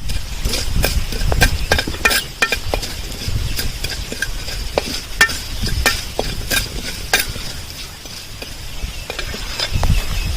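Whole spices (mustard seeds, fenugreek, cumin and pepper) frying in hot oil in a clay pot: a steady sizzle with many sharp irregular pops and crackles as the seeds splutter, with a spoon stirring.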